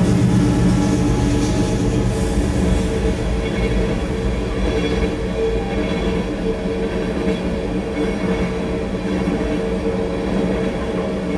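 Freight train cars rolling past on the rails: a steady rumble of wheels on track, with a few held steady tones over it.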